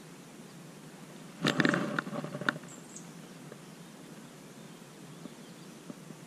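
A burst of rustling and knocking, about a second long, from clothing and the chest-mounted camera harness as the spinning rod is swept up in both hands, ending in a sharp click. Before and after it there is only a faint steady outdoor hiss.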